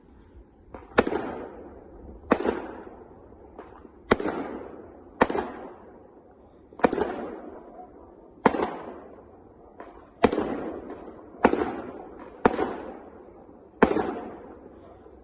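A 25-shot "Fart Cough" consumer firework cake firing shot after shot, ten in all, about one every one and a half seconds. Each is a sharp bang followed by a noisy tail that fades over about a second.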